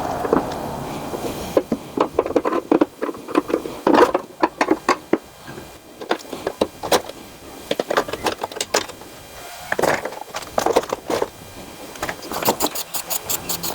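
Irregular metallic clicks and knocks from hand tools and small metal mower parts being handled during repair work, with a rapid even run of clicks near the end.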